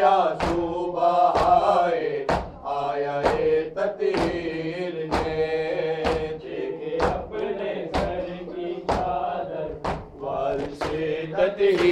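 A group of men chanting an Urdu noha (lament) together, with sharp hand slaps of chest-beating (matam) about once a second keeping the beat.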